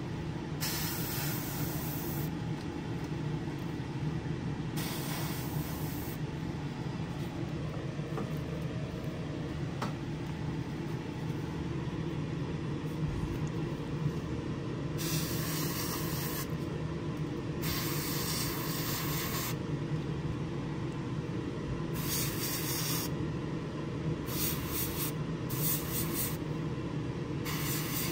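Spray booth fan running with a steady drone, while an airbrush sprays paint in about eight short bursts of hiss, each a second or two long.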